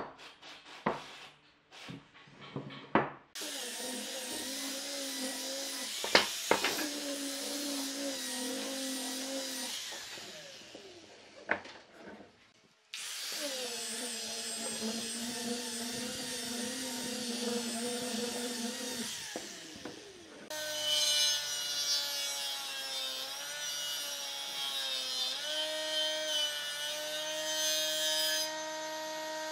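A few knocks of wooden blocks set down on a workbench, then power tools running on wood in separate runs. One is an angle grinder with a sanding disc whirring against a pine block. Near the end a jointer's motor runs, its pitch dipping and recovering as a board is fed across the cutter.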